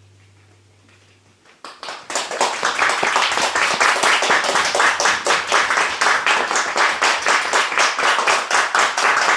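The last low note of the music rings and fades away, then a small audience breaks into applause about a second and a half in, quickly reaching full strength and continuing steadily.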